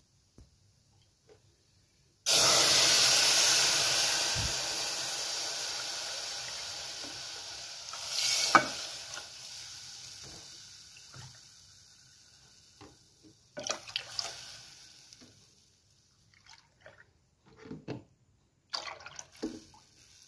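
Milk poured into a pan of hot, butter-roasted vermicelli: a sudden splashing rush about two seconds in that fades away slowly. A few light knocks of utensils on the pan follow near the end.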